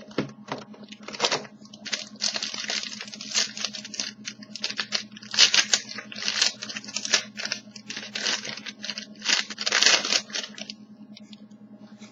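Plastic or foil wrapping of a hockey card pack being torn and crinkled open in a run of loud rustling bursts that stop about a second before the end.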